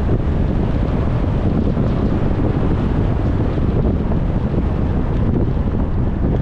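Steady low rumble of a car driving at speed: road and wind noise with no change in pace.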